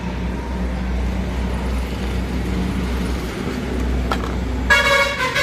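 Steady low rumble of road traffic, with a short, loud pitched tone about five seconds in.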